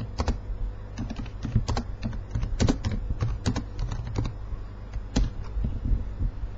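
Typing on a computer keyboard: irregular key clicks, several a second, thinning out after about four seconds.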